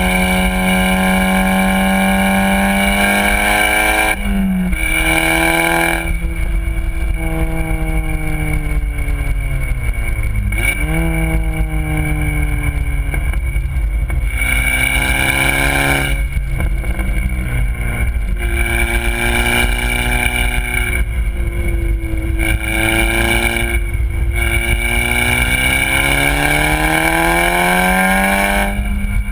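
Volkswagen Golf R's turbocharged four-cylinder engine through a Borla aftermarket exhaust, driven hard at speed: the revs climb and fall again and again, with sudden breaks at the gear changes.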